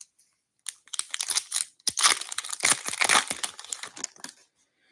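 Upper Deck Series 2 hockey card pack wrapper crinkling and crackling as it is pulled away from the cards and the cards are handled. A dense run of crackles starts about half a second in and dies away near the end.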